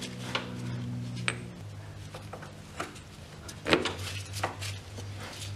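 Light metal clinks and clicks as a new front sprocket is slid onto the splined countershaft of a Honda 400EX quad, the loudest knock about three and a half seconds in, over a low hum.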